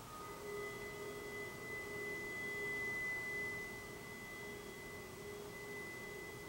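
Metal rods of a percussion sculpture sounding a sustained, high pure tone with a fainter lower tone beneath it. The tone swells gently, then slowly fades.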